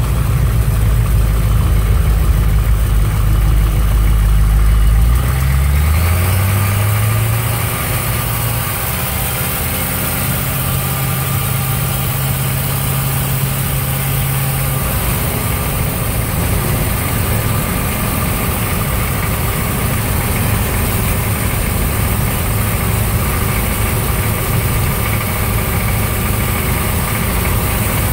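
Hummer M998's diesel V8 idling, then pulling away about five seconds in, its pitch rising, and settling into a steady cruise with tyre and road noise, heard from inside the cab.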